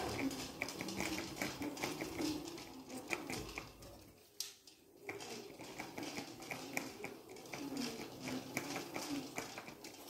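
Electric kick scooter rolling slowly over a tiled floor, with runs of light clicks and rattling that stop for about a second partway through.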